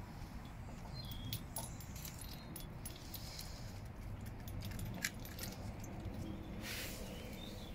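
Light metallic jingling and scattered clinks, with a sharper click about five seconds in and a short hissing rustle near the end, over a low steady rumble.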